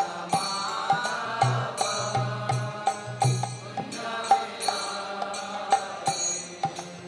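Devotional kirtan accompaniment between sung lines: small hand cymbals strike an even beat of about two a second over low drum strokes and sustained instrument tones.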